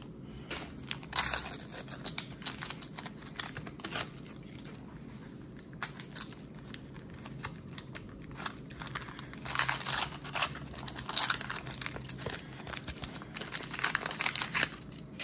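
Waxed-paper wrapper of a 1991 Donruss baseball card wax pack being torn open and crinkled by hand, in irregular crackly bursts that are strongest about a second in and over the last five or six seconds.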